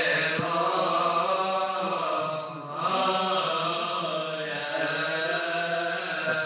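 Coptic Orthodox funeral chant sung by a group of men's voices in unison, long drawn-out melodic phrases with a brief breath about two and a half seconds in.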